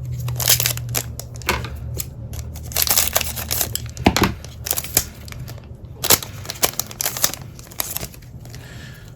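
Crinkling, rustling and tearing of a trading card pack's wrapper being handled and torn open, in irregular crackles.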